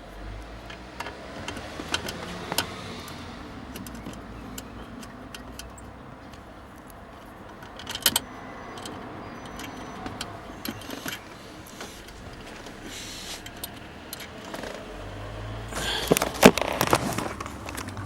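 Scattered clicks, taps and light metallic jingling of hand work refitting fasteners, with a denser burst of rattling about sixteen seconds in.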